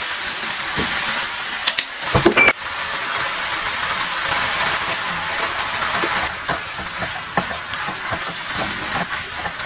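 Stir-fried rice noodles sizzling in a hot pan with a steady hiss, while a metal spatula knocks and scrapes against the pan. A loud, ringing metallic clank comes about two seconds in, and from the middle on there are quick repeated knocks of the stirring.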